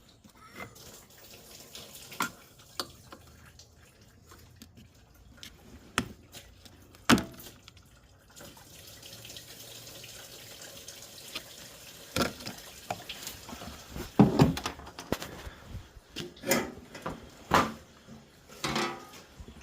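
Engine coolant draining from a 2008 Polaris RZR 800's cooling system, trickling and dripping into a pan, with scattered clinks and knocks from tools and parts being handled.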